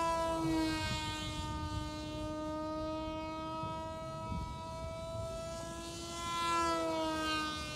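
Radio-controlled model jet's motor whining overhead, a steady tone of several pitches that drifts as the plane manoeuvres, swelling and then dropping in pitch as it passes about six to seven seconds in. Wind rumbles on the microphone underneath.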